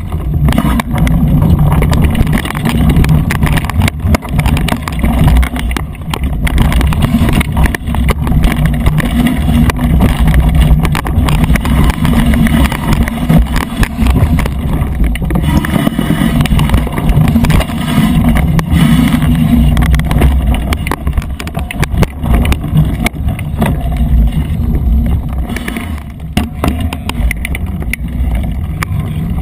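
Wind buffeting an action camera's microphone during a mountain bike ride over a rough dirt singletrack. There is a continuous low rumble, with frequent knocks and rattles from the bike jolting over bumps and roots.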